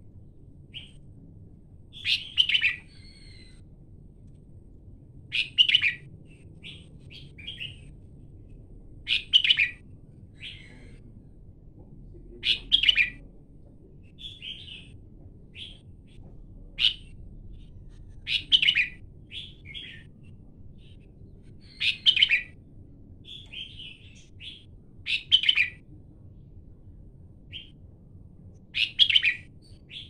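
Red-whiskered bulbul singing: short, loud song phrases repeated about every three to four seconds, with softer chirps in between.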